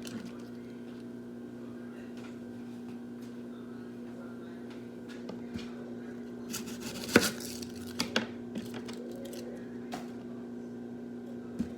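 Kitchen handling sounds: a few sharp knocks and clatters of cookware and utensils over a steady electrical hum. The loudest knock comes about seven seconds in, followed by a couple more about a second later.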